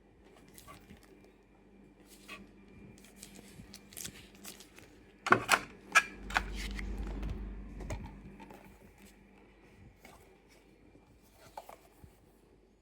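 Hands handling earbud packaging: scattered light clicks and rustles, with a burst of sharp loud clicks about five seconds in followed by a low rumble of handling for a couple of seconds.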